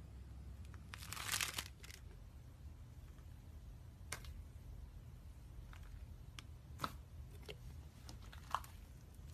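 Crinkling of something being handled, a brief burst about a second in, followed by a few light, sharp taps or clicks spread out over the next several seconds.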